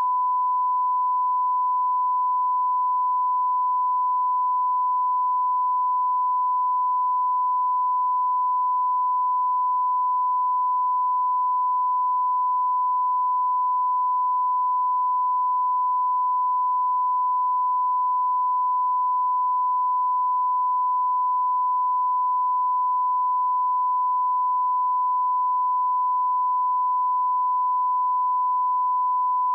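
1 kHz reference test tone: one unbroken pure tone, steady in pitch and level. It is the line-up tone played with colour bars to set audio levels.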